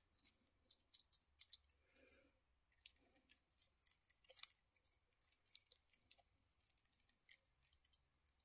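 Faint, irregular small clicks and ticks of handling: two diecast toy jeeps being turned over in the fingers, their metal and plastic parts tapping against fingertips and nails, with a soft rustle about two seconds in.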